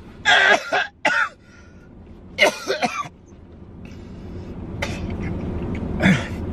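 A man coughing and hacking in several short fits, two close together early and more spread out after. The coughing is faked for a prank, with a fake-blood packet chewed in his mouth.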